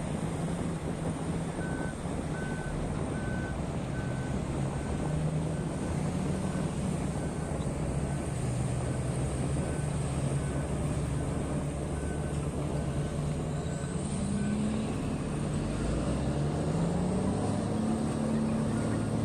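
Reversing alarm of heavy mine equipment beeping about one and a half times a second over a running diesel engine: the machine is backing up. The beeps stop about fifteen seconds in, the engine note rises, and the beeping starts again near the end.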